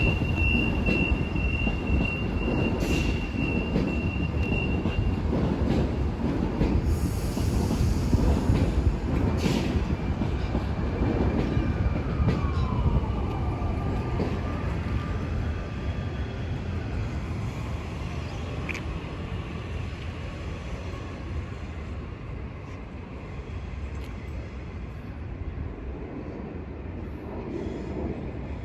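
A train running through the station with a loud low rumble, and a steady high-pitched wheel squeal for the first few seconds. Tones that glide in pitch come through mid-way, and the rumble gradually fades toward the end.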